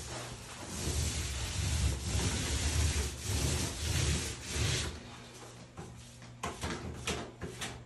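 Paint roller on an extension pole rolling paint onto a wall, a continuous rubbing hiss that swells and fades with the strokes. About five seconds in the rolling stops, and a run of short clicks and taps follows as the roller is loaded in the paint bucket.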